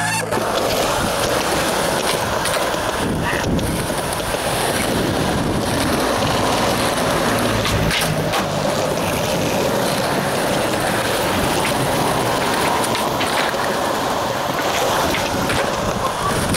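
Skateboard wheels rolling on concrete pavement with wind on the microphone, broken by a few sharp knocks of the board, the loudest about eight seconds in as the board hits and slides along a wooden bench.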